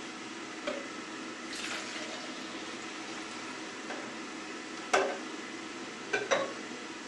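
Plastic juice jugs handled and set down on a counter and kitchen scale: a few short knocks, the loudest about five seconds in and a quick double knock near the end, over a steady low hum.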